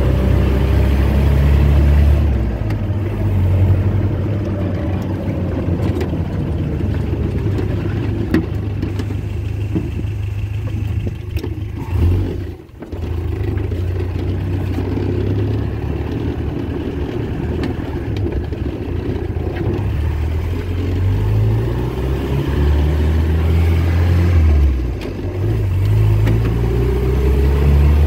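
A 1961 Land Rover's freshly rebuilt four-cylinder petrol engine running under load on a test drive, revving up and dropping back as it is taken through the gears. There is a brief lift-off about halfway through and another near the end, then the engine note climbs steadily. It seems to run all right.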